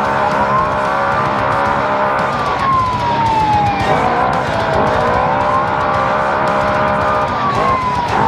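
Naturally aspirated side-by-side race UTV engine running hard, heard from inside the car. Its pitch slides down from about two seconds in, then swings back up around four seconds and again near the end as the throttle comes back on.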